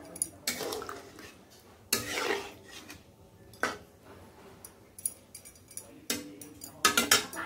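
Steel utensils clinking and knocking against steel pots and dishes: several separate clatters with short pauses between them, and a quick run of clinks near the end.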